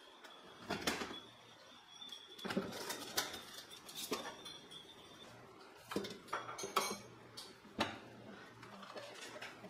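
Groceries being put away in an open refrigerator: plastic food packs and a clear plastic crisper drawer knocking and rattling in a string of light, irregular clicks and thuds.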